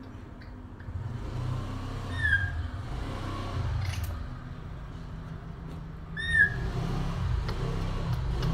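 Two short, high squeaky calls from a baby macaque, about four seconds apart, each rising and then falling in pitch, over a low rumble.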